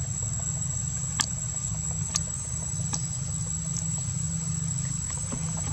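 Steady low hum of an idling engine, with a thin, steady, high insect whine above it and a few scattered sharp ticks.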